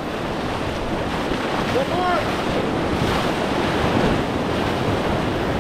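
Steady rush of whitewater rapids, with wind buffeting the microphone.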